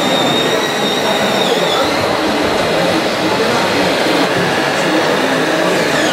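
Steady hubbub of a busy exhibition hall, many voices mixed with machine noise, around working scale RC construction models. A thin high electric whine wavers slightly in pitch over the first couple of seconds.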